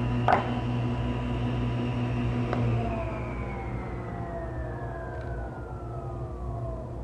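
Table saw switched off after a rip cut: a sharp knock just after the start, then a click a couple of seconds in, after which the motor and blade coast down in a steadily falling whine.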